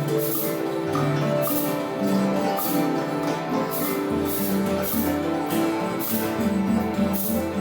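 Acoustic instrumental music: held pitched tones over a low bass note that changes pitch, with a rattling percussion beat about once a second.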